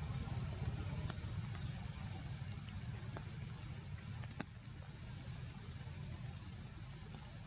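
Steady rain falling, with a low rumble underneath and a few sharp taps of drops, the loudest about four and a half seconds in.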